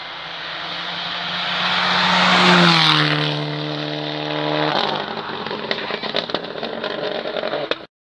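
Rally car driving past close by on a tarmac stage: the engine grows louder as it approaches, then its note drops in pitch as it goes past and pulls away. A quick run of sharp cracks and clicks follows, and the sound cuts off suddenly near the end.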